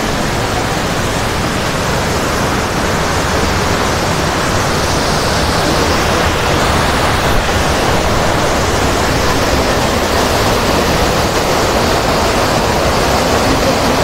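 Waterfall in heavy flow: a steady, loud rush of falling water.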